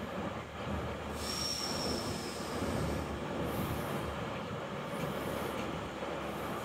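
Queensland Rail electric train standing at the platform with a steady low hum and rumble. A brief high-pitched squeal starts about a second in and lasts just over a second, falling slightly in pitch.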